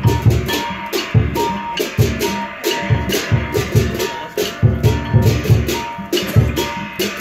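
Lion dance percussion: a large Chinese drum struck in quick clusters, with cymbals clashing over it several times a second.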